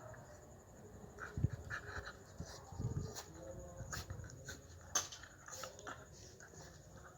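A dog panting while playing rough with a cat, with scattered soft bumps and clicks of the scuffle.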